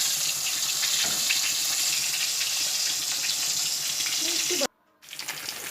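Flour-coated chicken pieces deep-frying in hot oil: a steady, dense sizzle with scattered crackling pops. It cuts out abruptly for a moment near the end.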